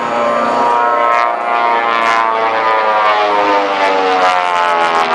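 Airplane engine droning overhead, a steady sound of several tones that slowly shift in pitch as the aircraft passes.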